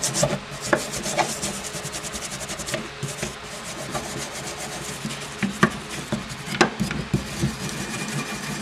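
Small brass wire brush scrubbing rapidly back and forth over a cast-iron lathe steady rest, scratching off paint softened by chemical stripper. A few sharper knocks come as the brush strikes the casting.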